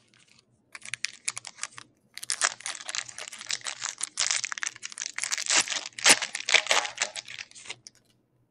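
Foil trading card pack wrapper torn open and crinkled by hand: a dense run of crackling from about a second in until near the end, with a brief pause about two seconds in.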